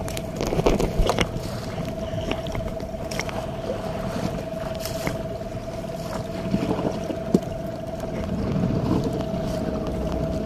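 Small fishing boat's motor running at a steady speed, a constant hum under the splash and rush of water against the hull, with a few light knocks.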